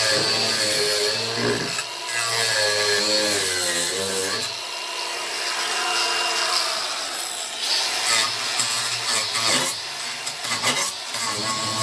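Angle grinder fitted with a chainsaw-chain disc cutting into wood, its motor whine dipping in pitch and recovering several times as the chain bites under load.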